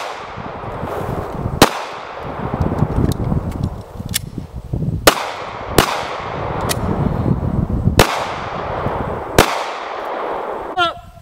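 Two Glock 43 9mm subcompact pistols fired in slow, irregular succession, about eight shots spaced under a second to over two seconds apart. Each shot trails off in a long echo.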